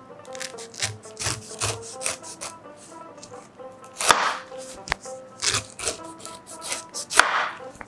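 Kitchen knife slicing the tough skin off a whole pineapple on a wooden cutting board: a series of separate cutting strokes, the loudest about four seconds in and again near the end.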